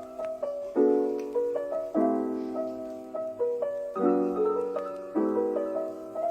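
Background music: a gentle piano piece, with chords struck about once a second and left to ring and fade.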